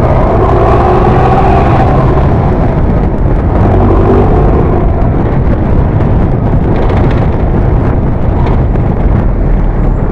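Mercedes-Benz OF 1418 bus's diesel engine running loud through its exhaust. A pitched engine note in the first couple of seconds settles into a steady, rough rumble.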